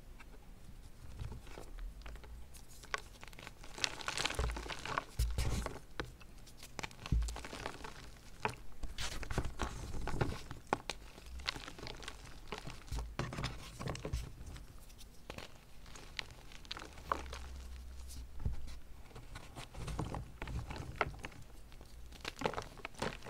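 Chunks of BSN gym chalk coated in dried yellow cornstarch paste being crushed and crumbled by hand. The crushing starts about a second in and makes a dense run of small cracks and crackles, with a few heavier crunches.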